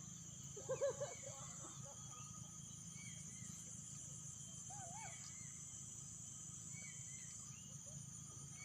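Insects chirring steadily at a high pitch, with a few short chirping calls, the loudest cluster about a second in.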